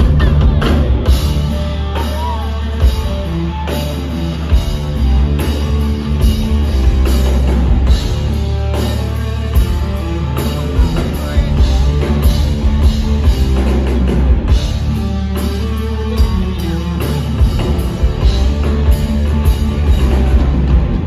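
Rock band playing live and loud: electric guitar over a steady drum-kit beat and heavy bass.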